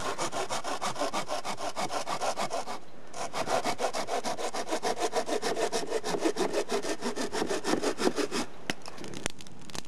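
Small folding hand saw cutting through a firewood log in quick back-and-forth strokes. The strokes pause briefly about three seconds in, resume, and stop near the end, followed by a couple of light clicks.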